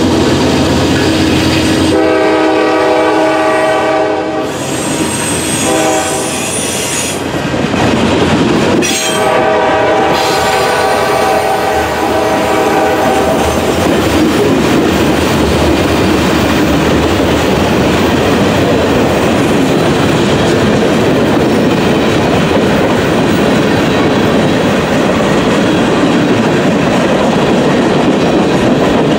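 Freight train passing close by. The diesel locomotive's horn sounds three more times as it moves away: a long blast, a shorter one, then a long blast of about four seconds. After that comes the steady rumble and clatter of freight cars rolling over the rails, with some wheel squeal.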